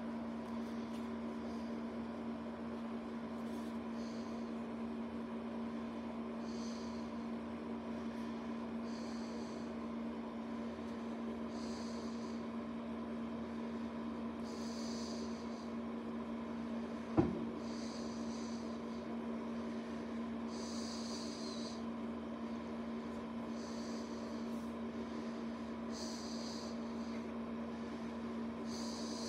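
A steady low hum runs throughout, with short soft hissing sounds every two to three seconds that are likely breaths near the microphone. A single sharp knock comes a little past halfway.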